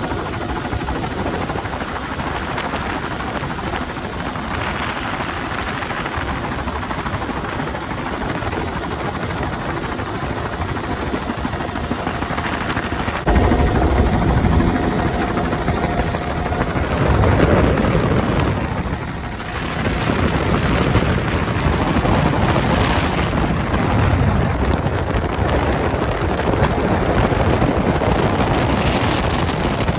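Steady rush of helicopter rotor and engine noise mixed with wind blasting through the open doorway onto the microphone. About 13 seconds in it changes abruptly to a louder, deeper wind buffeting that swells and dips.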